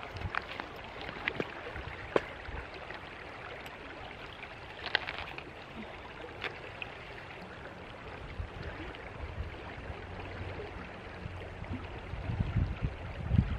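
River water flowing steadily over rocks, with a few scattered small clicks and knocks. A low rumble builds near the end.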